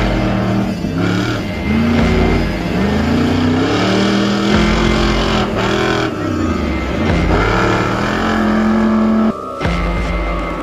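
Off-road competition truck's engine revving hard in repeated bursts, its pitch climbing and falling again and again, with a sudden break about nine seconds in.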